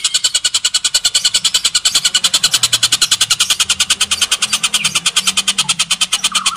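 Oriental dollarbird calling in a fast, unbroken chatter of evenly spaced notes, about ten a second.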